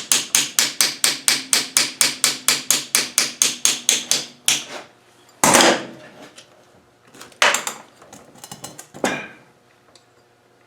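Hammer tapping rapidly on a metal punch, about five taps a second, to drive a tight, rusty pin out of a steering box. After about four seconds the rapid tapping stops and a few separate, heavier blows follow.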